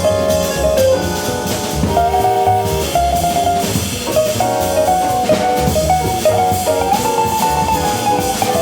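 Small jazz band playing live: drum kit and upright bass keeping time under a lead melody line of held notes that steps up and down.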